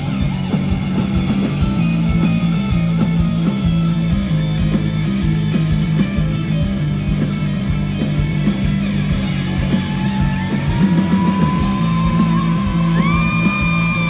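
Live rock band playing an instrumental stretch of a song: a steady repeating bass line under guitars. A pitched line climbs in about two thirds of the way through and becomes a long high note that is held, then drops away right at the end.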